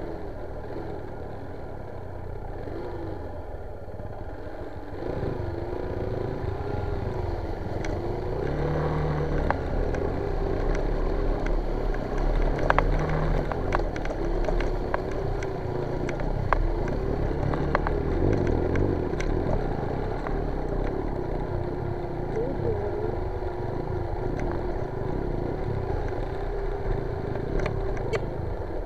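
Motorcycle engine running over a rough dirt trail, its note rising and falling with the throttle over a low rumble. Scattered clicks and rattles come from the bumpy ride. It gets louder about five seconds in.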